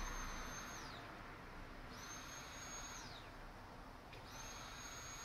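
Electric fuel pump for a 2002 Honda CBR954RR, powered from 12-volt bench leads in short bursts, giving a high whine. It runs three times: the first run stops about a second in, the second lasts about a second in the middle, and the third starts about four seconds in. Each run ends with the pitch falling as the pump spins down. This replacement pump runs when powered, while the bike's original pump stayed silent on the same test, so the original is judged bad.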